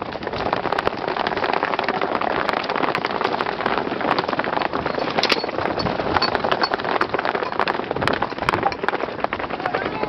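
Hooves of a group of horses galloping on a dry dirt track: a dense, continuous patter of many overlapping hoofbeats.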